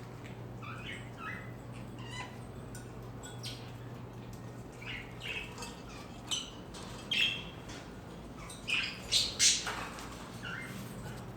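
Birds calling in short squawks and chirps, scattered at first, then louder and more frequent in the second half, over a steady low hum.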